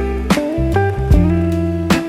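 Background music: guitar-led instrumental with a bass line and a steady beat.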